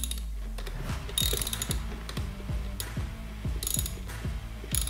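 Ratchet driver clicking in short bursts as the display's retaining nuts are tightened: a burst about a second in, another near the end, and a brief one just before it stops. Underneath, a low thump repeats about three times a second.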